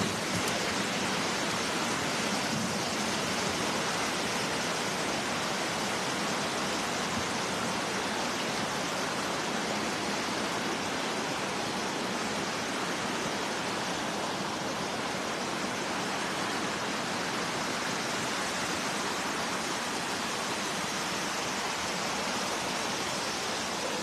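Flowing river water, a steady rushing hiss with no breaks.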